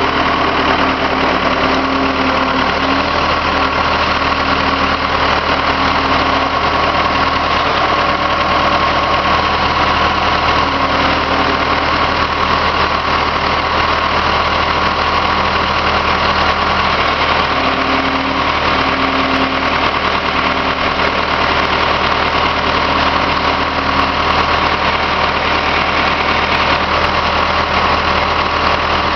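Skid loader's engine idling steadily.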